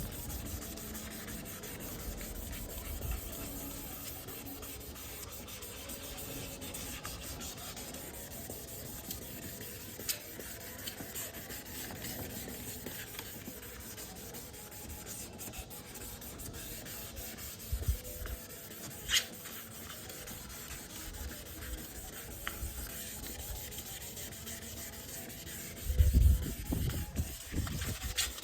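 Continuous wet sanding of a plastic headlight lens with 800-grit sandpaper and water: a steady rubbing scrape, with a few brief low thumps, the loudest cluster near the end.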